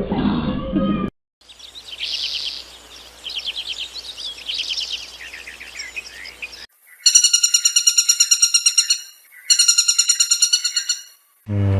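A songbird singing short, quick trilled phrases. Then comes a louder call of rapid, even pulses in two bursts, the first about two seconds long and the second about a second and a half.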